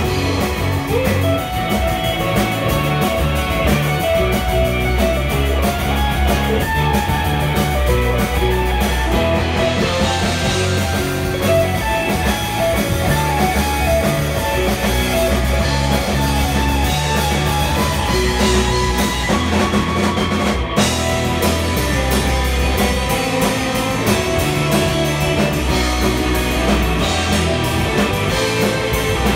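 Live surf rock band playing an instrumental: electric lead guitar carrying the melody over rhythm guitar, electric bass and a drum kit.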